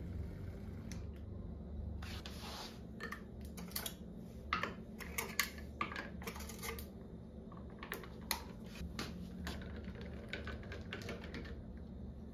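A run of irregular light clicks and clinks starting about two seconds in: a glass of iced coffee and small kitchen items being handled and set down on a wooden counter.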